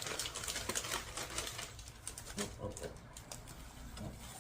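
Rustling and crinkling of a thin, flimsy sheet being handled, busiest in the first two seconds, followed by quieter handling and a few short low sounds.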